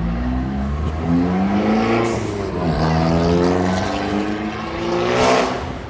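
A motor vehicle accelerating hard along the street: its engine note climbs in pitch, drops back at each gear change and climbs again, then passes close about five seconds in.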